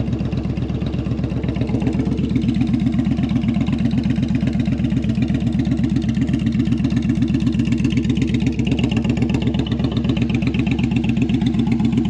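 Yamaha V-Star 1100 (XVS1100) air-cooled V-twin idling steadily with an even, unchanging beat, freshly started and warming up.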